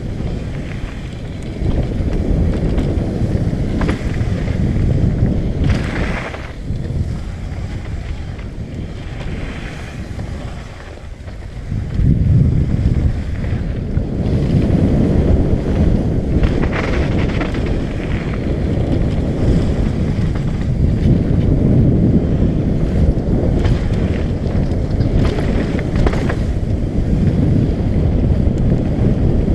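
Wind buffeting the microphone with a low, steady rumble as a downhill mountain bike is ridden down a dirt trail. It eases off briefly about ten seconds in, then picks up again.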